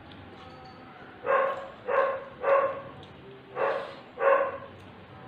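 A dog barking five times, a group of three then a group of two, starting about a second in.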